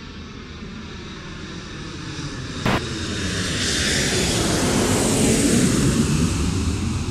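Airplane engine drone passing over, growing steadily louder to a peak about five to six seconds in. There is a single sharp knock about two and a half seconds in.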